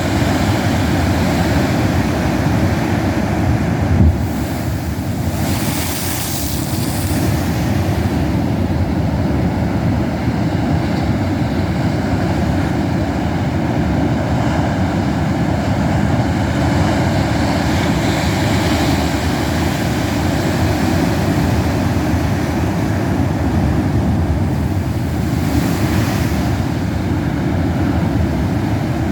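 Pacific Ocean surf at king tide, waves crashing against sea cliffs: a loud, continuous rush of water, with the hiss swelling about six seconds in and again near the end.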